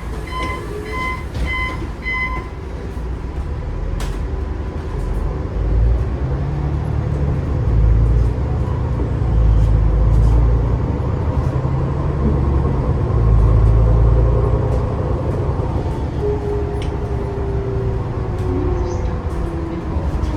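MAN ND323F double-decker bus under way: a run of short electronic warning beeps about twice a second for the first couple of seconds, then the Euro 6 diesel engine pulling hard in several rising and falling surges through the ZF automatic gearbox. Near the end a gliding whine from the hub reduction axles comes through.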